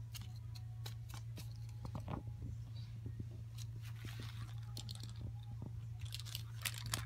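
Cat biting and chewing blades of cat grass: a run of irregular small crunches and clicks as it tugs at the grass. A steady low hum lies underneath.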